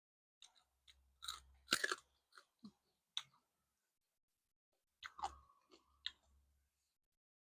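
A person chewing food close to the microphone, with crisp crunching bites in two bouts separated by a short pause.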